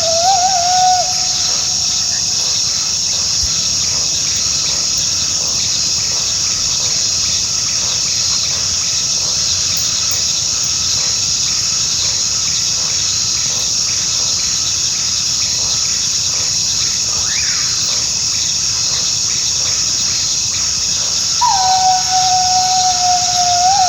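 Coyote howling: one long, nearly level howl trails off about a second in, and another begins near the end. A steady high insect chorus, like crickets, runs under it throughout.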